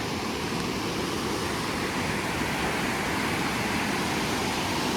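Steady rush of a waterfall on a glacier-fed river, an even roar of falling water.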